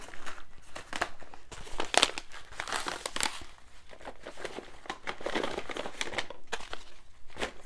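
Small tea sample packets crinkling and rustling as they are gathered up and put away, an irregular crackle with a few sharper clicks.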